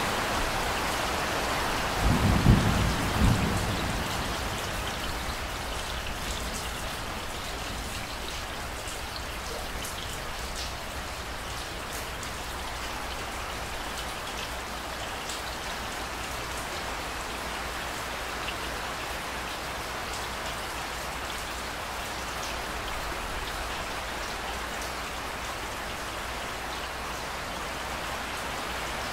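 Steady rain falling, with fine drop patter, and a short low rumble of thunder about two seconds in, the loudest moment.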